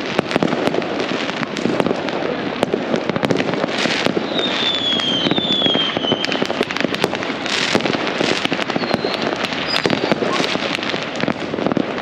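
A barrage of fireworks and firecrackers going off near and far, a dense, continuous crackle of bangs. Whistling rockets add short whistles that fall slightly in pitch, two about four to six seconds in and shorter ones later.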